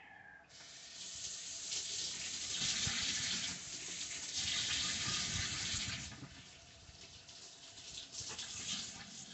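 Water running from a tap, a steady hiss that starts about half a second in and eases off after about six seconds, followed by fainter rustling.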